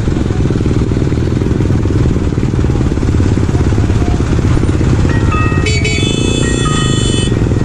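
Diesel engine of a dump truck running at low revs close by, mixed with motorcycle engines. About five seconds in, a melodic music track comes in over the engine noise.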